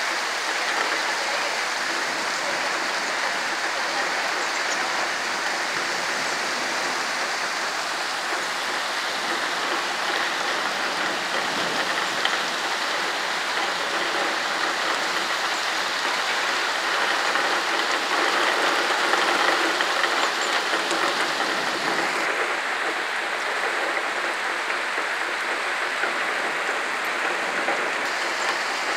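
Heavy rain pouring steadily onto flooded paving, swelling a little louder for a few seconds past the middle.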